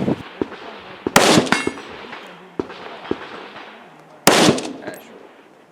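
Two rifle shots about three seconds apart, each sharp and loud with a trailing echo, with a few light clicks and knocks between them.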